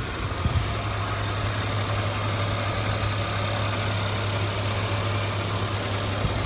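Car engine idling, with a misfire on cylinder 3 (codes P0300 and P0303) that is put down to a faulty fuel injector.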